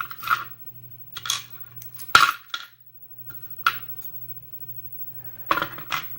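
Metal padlock parts and tools clinking and clattering as a lock is handled during disassembly: about five separate sharp clinks, the loudest a little past two seconds in.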